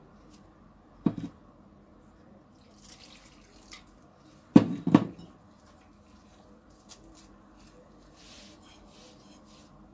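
Warm milk poured from a glass jug into flour in a glass bowl, with glass knocking on glass: one knock about a second in and a louder double knock near the middle. Soft rustling of a hand stirring the flour into a dough.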